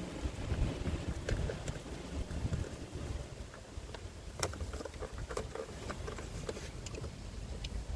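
Scattered light clicks and taps of hands and tools working on plastic dashboard trim and clips, over a low handling rumble, with one sharper click about four and a half seconds in.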